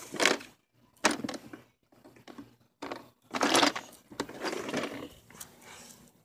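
Irregular bursts of rustling and scraping handling noise as a phone is moved and brushed against clear plastic storage drawers, with short silent gaps between them.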